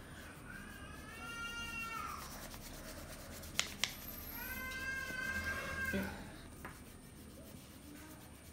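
A cat meows twice: two long calls, each rising and then falling in pitch, with two sharp clicks between them.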